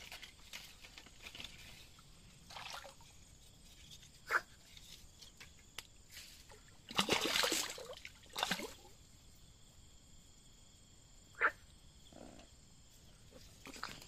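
A fish thrashing at the surface of shallow muddy water, splashing in a few separate bursts; the loudest and longest splashing comes about seven to nine seconds in.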